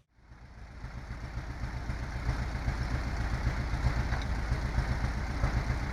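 Heavy diesel vehicle engine running with a steady, rhythmic low throb that fades in over the first couple of seconds after a sudden cut.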